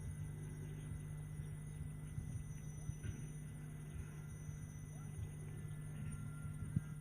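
Faint, steady low electrical hum on an old recording, with scattered faint clicks and crackles and a sharper click near the end.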